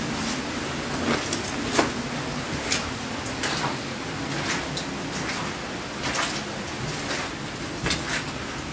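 A steady rushing noise with a few irregular short knocks and scrapes, like footsteps on stony ground.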